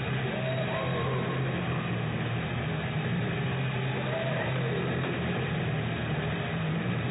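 Music with guitar played over an ice rink's PA system, fading under a steady background din of the arena.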